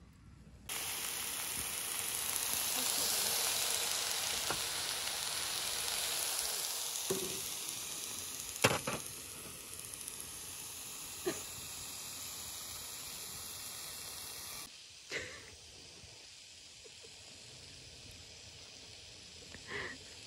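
Meat and vegetables sizzling in a frying pan on a portable gas stove: a loud, even hiss that cuts in sharply about a second in and stops suddenly about fifteen seconds in. A few sharp knocks stand out over the sizzle, the loudest a little past the middle.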